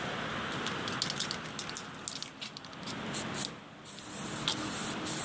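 Aerosol can of primer spraying in a steady hiss, broken by short stutters and cut off briefly about three and a half seconds in before the spraying resumes.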